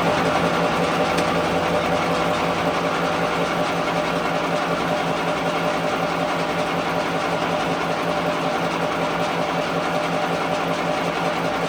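Workshop machine running steadily with an even mechanical hum.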